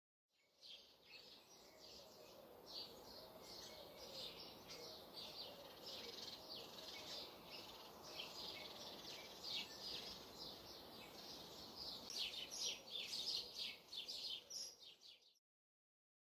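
Faint birdsong ambience: many small birds chirping over a low, even background hiss. It fades in just after the start, gets busier and louder toward the end, and cuts off abruptly shortly before the end.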